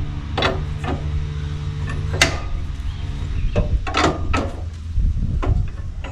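A series of sharp clicks and knocks, the loudest about two seconds in, as the flip-over locking pins on a Walker mower's tilt-up deck are worked to unlock it, over a steady low hum.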